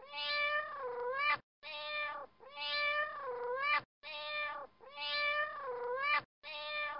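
A cat meowing: the same pair of drawn-out meows, the longer one sagging in pitch and rising again at the end, repeats as a loop about every two and a half seconds with short dead-silent gaps between repeats.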